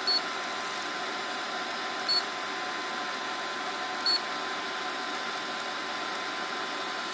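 Viki LCD control panel on a MakerGear M2 3D printer giving three short, high-pitched beeps about two seconds apart as its knob is clicked to select menu items, over a steady background hum.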